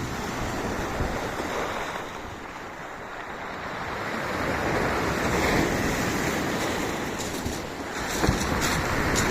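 Sea waves washing onto a beach, the surf swelling louder about halfway through, with wind buffeting the microphone.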